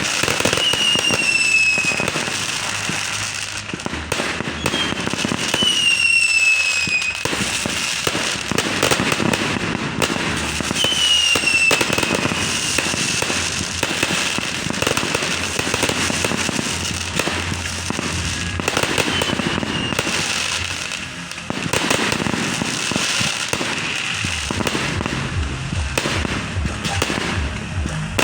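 Fireworks going off in a dense, continuous barrage of pops and crackles, with several whistling shells whose whistles fall in pitch.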